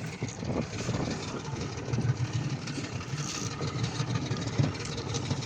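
Fishing boat's motor idling with a steady low rumble.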